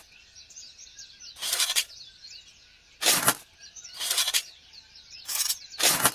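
A series of five short whooshes, each about a third of a second, coming irregularly over a few seconds, with faint birdsong chirping in the background.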